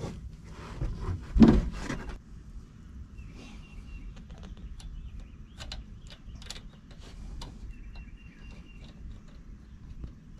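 Hand tools and hardware being worked while bolting an exhaust elbow down onto a marine engine's manifold. A loud metallic clatter comes about a second and a half in, followed by scattered light clicks and clinks of nuts, bolts and wrench.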